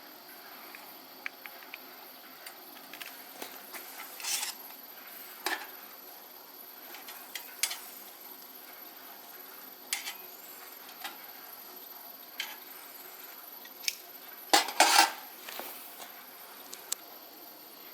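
Scattered light metallic clinks and taps of cooking utensils against a stainless steel barbecue grill, with a louder burst of clattering about fifteen seconds in.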